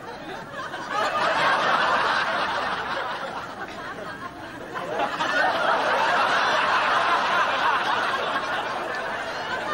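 A studio audience laughing, the laughter swelling about a second in, easing off in the middle, and building again from about five seconds in.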